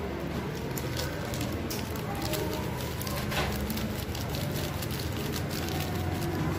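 Hands squeezing and mixing blended chicken mince in a bowl, a dense run of wet crackling and small clicks, while a seasoning sachet is shaken over the meat partway through. A steady low hum runs underneath.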